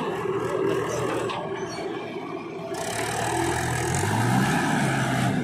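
Diesel tractor engine of a Swaraj 843 XM running under load as it pulls away with a trolley full of soil, revving up about four seconds in. A backhoe loader's engine runs alongside.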